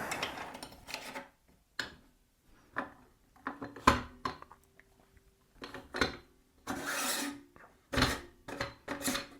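Irregular knocks, clacks and rubbing of tools and parts being picked up and handled on a workbench, a dozen or so separate short sounds with quiet gaps between.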